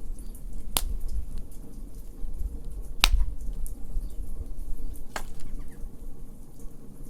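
Wood fire in a fire pit crackling, with three sharp pops about two seconds apart among fainter ticks.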